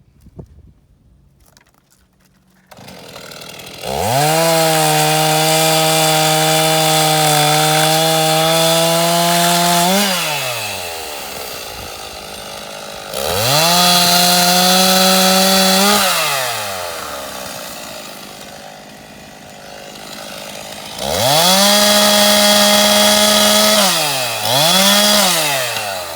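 Two-stroke Stihl chainsaw cutting wattle logs: the engine comes in about three seconds in, then is throttled up to a high, steady pitch three times for several seconds each, with a short extra rev near the end, dropping back to idle between cuts.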